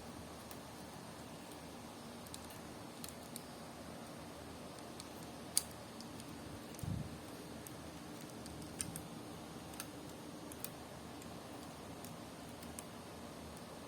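Lego parts being handled during assembly: scattered small plastic clicks and taps, with a soft low bump about seven seconds in, over a faint steady hum.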